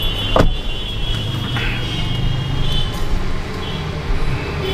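A vehicle engine running steadily amid street traffic noise, with a single sharp knock about half a second in.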